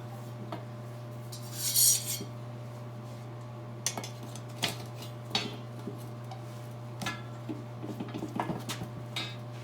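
Steel split rim being worked by hand into a tire: one short, loud scrape about two seconds in, then scattered metal clinks and taps. A steady low hum runs underneath.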